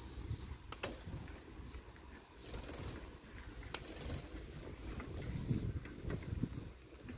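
Wind rumbling on the microphone, with a few faint clicks or knocks.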